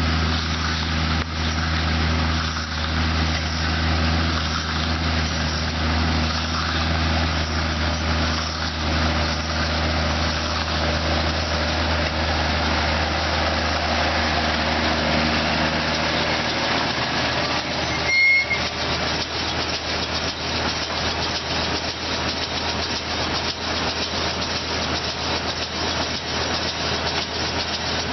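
Case IH Maxxum 140 tractor running with a Welger baler: a steady engine hum under machinery noise. About two-thirds of the way in there is a brief high-pitched squeal, and after it the low engine hum drops away, leaving a rougher mechanical rattle.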